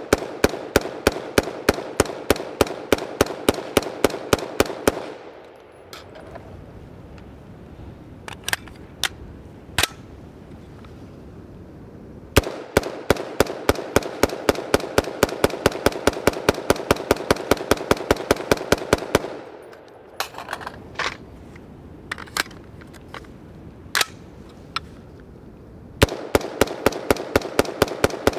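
A 5.56 mm BCM direct-impingement AR-15 firing rapid semi-automatic strings of shots, several a second. The strings are broken by two pauses holding only a few faint clicks. The rifle is uncleaned and unlubricated near the end of a 1,000-round run and keeps cycling without a stoppage.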